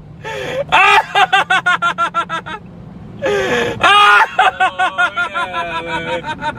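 A person laughing in a high-pitched voice in two long fits of rapid, repeated bursts, over the low steady hum of a car cabin.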